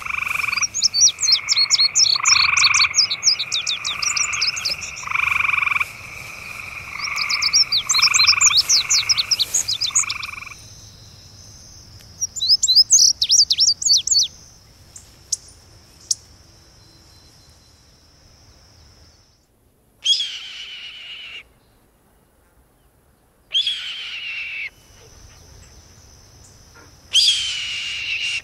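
Birdsong and wild animal calls by a lake. For the first ten seconds, repeated two-pitched notes are overlapped by fast, high chirping trills. A short high trill follows, then three separate calls a few seconds apart, each falling in pitch, over a faint steady high hum.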